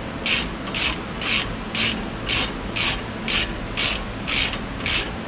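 Ratchet wrench clicking in quick back-and-forth strokes, about two bursts a second, as it spins off the nut of a front anti-roll bar link.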